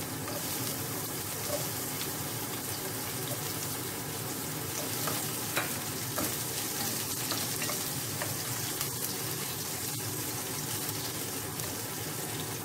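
Sliced onions sizzling steadily in hot oil in a pot, stirred with a wooden spatula, with a few sharp taps of the spatula against the pot.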